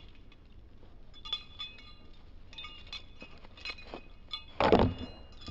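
Light clinking, several times over, each clink leaving a short ringing tone, with a louder burst of noise near the end.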